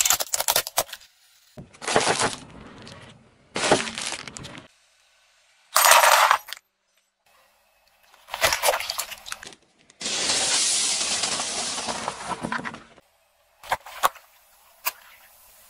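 A car tyre crushing a series of objects: plastic toys, a watermelon and liquid-filled balloons. The result is a run of short, separate cracking and crunching bursts with abrupt gaps between them, and one steady hiss about three seconds long just past the middle.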